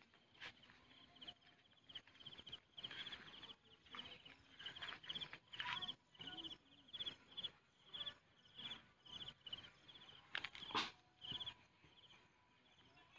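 Faint insect chirping, likely a cricket: short buzzy chirps repeated steadily about twice a second, with a few sharp knocks, the loudest about three-quarters through.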